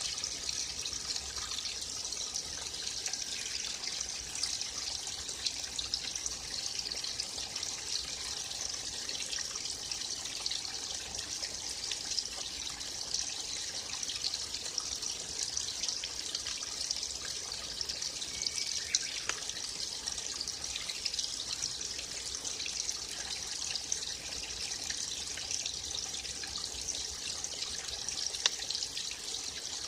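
Small stream of water flowing and trickling steadily.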